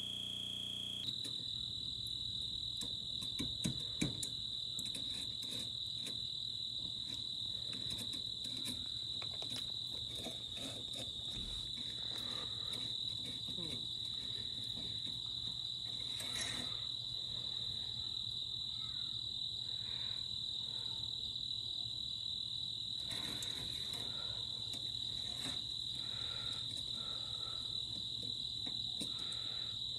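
Crickets chirring in a steady, unbroken high-pitched chorus, with a few soft clicks about three to four seconds in.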